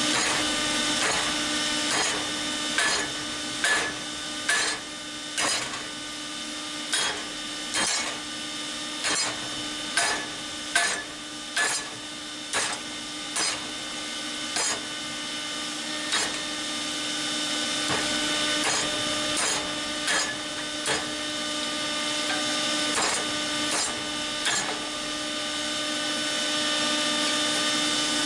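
Hand hammer striking hot steel on an anvil, about one blow a second with a few short pauses, each blow ringing briefly, over a steady hum; the hammering stops a few seconds before the end. The blows are bending the point of a salvaged lawn tiller tine into a hook.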